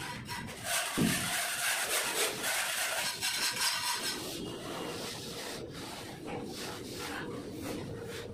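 Plastering trowels scraping and rubbing wet cement-sand plaster across a brick wall, a continuous rasping made of many short strokes, with a dull thump about a second in.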